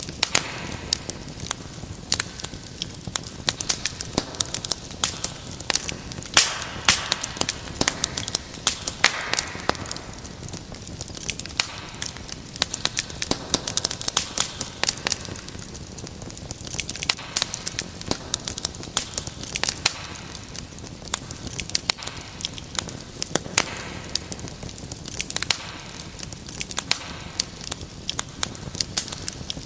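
Wood fire crackling in a fireplace: a steady hiss under dense, irregular sharp pops and snaps.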